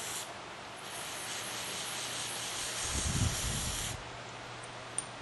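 Jet-spray aerosol can of Gum Out small-engine carburetor and choke cleaner spraying onto a blower carburetor. A short spray ends just after the start, then a longer hiss of about three seconds cuts off sharply, with a low bump near its end.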